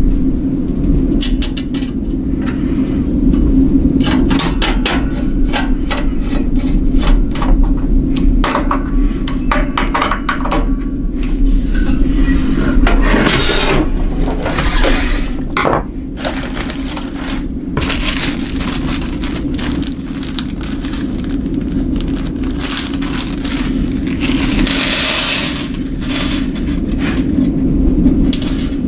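Metal and plastic hardware being handled during a GPU mining rig build: irregular clicks, clinks and scrapes of parts and screws, over a steady low hum.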